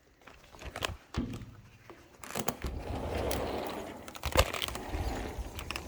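A door being opened on the way outside: a few sharp knocks and clunks, with a rough rolling scrape lasting about two seconds in the middle and the sharpest knock about two-thirds of the way through.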